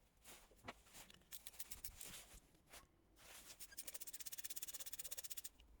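Socket ratchet clicking rapidly, about a dozen clicks a second for roughly two seconds, as a new glow plug is run into the cylinder head. Before it come a few scattered faint handling sounds.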